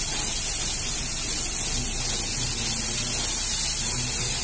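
Fire hose jet of water spraying with a steady hiss, the pump turned up to higher pressure, with a faint low steady hum underneath.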